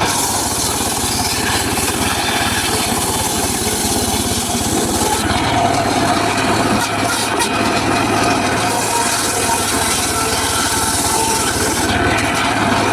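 Homemade circular saw cutting teak wood: a loud, continuous sawing noise over the steady hum of the machine.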